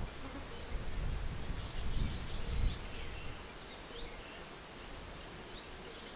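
Summer countryside ambience: a high, thin insect trill that comes in twice, about a second each time, over a few short bird chirps. A low, gusty wind rumble runs under the first half.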